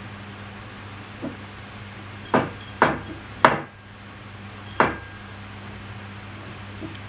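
A cup knocking against a hard surface as a cat paws at it: four sharp knocks over about two and a half seconds, the third the loudest, with a few fainter taps before and after.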